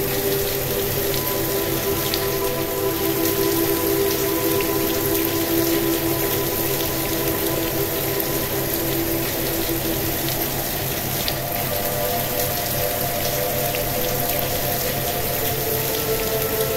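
Steady rain with the patter of individual drops, mixed with soft relaxation music of long held tones that shift slowly, over a low pulsing hum.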